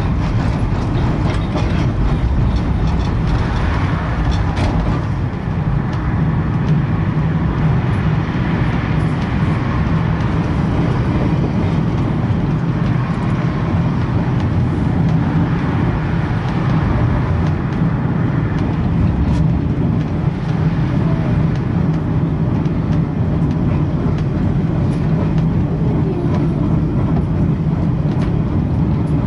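Blackpool Western Train heritage tram 733 running along the promenade tramway, heard from inside its rear saloon car: a steady low rumble of wheels on rail and running gear, with a few faint clicks.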